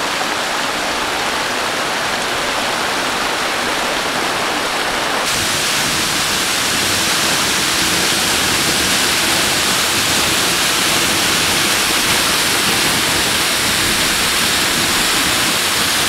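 Waterfall pouring down a rock face and splashing into its pool: a steady rushing of water, turning hissier about five seconds in.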